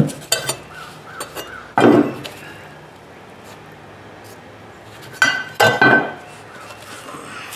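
Cut-open pieces of a Honda EU2000i generator's sheet-steel muffler clinking and knocking as they are handled and set down. There are a few light clicks at the start, a heavier knock about two seconds in, and a cluster of clinks with a short metallic ring about five to six seconds in.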